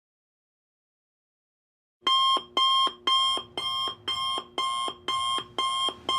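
Alarm clock sounding its alarm: silent at first, then about two seconds in a repeating high-pitched beep starts, about two beeps a second, each lasting nearly half a second.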